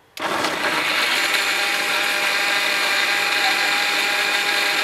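Electric mixer grinder switched on and running at full speed, grinding green chillies, ginger and garlic to a paste. It starts abruptly just after the start and runs as a steady, loud motor whine with a hiss of the blades working.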